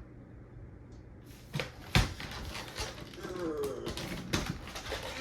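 Hard plastic Nerf blaster being gripped and pried at by hand: a run of irregular clicks and knocks, the sharpest about two seconds in.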